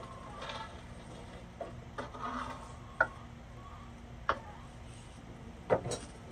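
A few sharp clicks and knocks spread out, the loudest a double knock near the end, with a couple of short faint calls between them.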